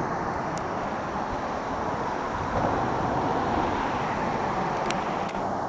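Steady traffic noise from the interstate highway bridge overhead: a continuous rush of tyres on the road deck that swells a little about two and a half seconds in.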